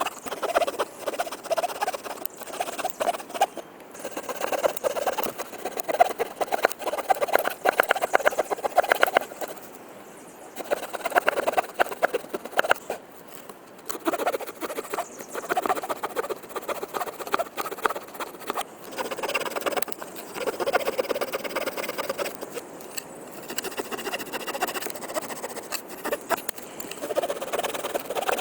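Victorinox Soldier pocket knife's saw blade cutting through a branch of hard, compact wood by hand, a rasping back-and-forth in runs of a few seconds with brief pauses between them.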